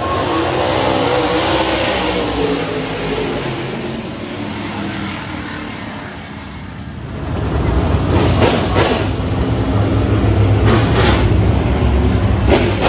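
Dirt-track race cars running around the oval under caution. The engine noise dips for a moment and then builds to a loud, rumbling drone about halfway in as the pack comes by.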